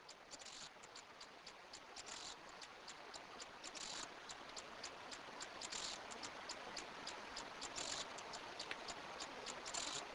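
Faint ambience of rapid, irregular high-pitched ticks and clicks over a soft hiss, growing louder, with a brighter swell about every two seconds.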